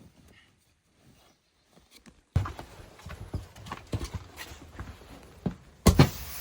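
Irregular knocks and crunches that start suddenly a little over two seconds in, with a loud thud near the end.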